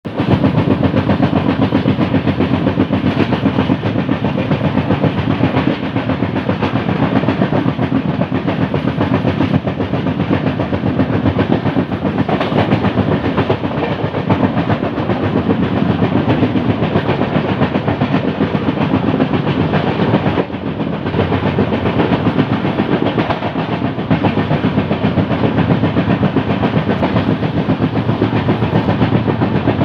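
LHB passenger coaches of the 12794 Rayalaseema Superfast Express running at speed, wheels on the rails giving a loud, continuous clatter of rapid repeated knocks: the pounding of a flat spot worn on a wheel.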